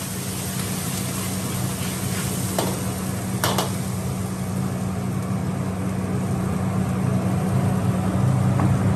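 Sauce sizzling in a carbon-steel wok as a steel ladle stirs it, over the steady low rumble of a high-flame gas wok burner. Two sharp knocks of the ladle against the wok, about two and a half and three and a half seconds in, the second ringing briefly.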